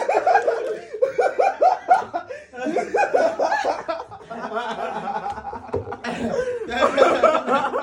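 People laughing in runs of short, quick bursts, mixed with some talking.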